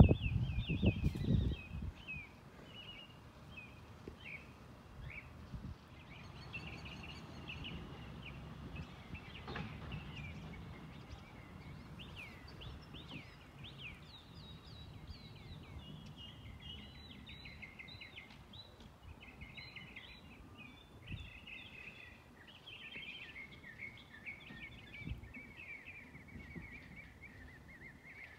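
Small birds chirping busily, many short high chirps and quick sweeps one after another, over a faint low background rumble. A louder low rumble at the very start fades away within the first two seconds.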